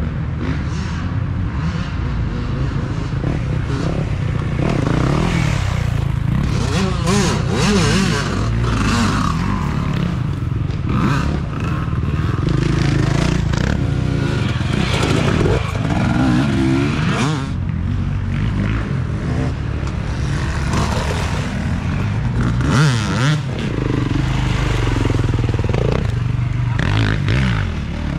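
Off-road dirt bike engines revving up and down through a muddy wooded race section as at least two bikes come through, the throttle rising and falling many times. Scraping and clattering from the bikes on the ruts and debris is mixed in.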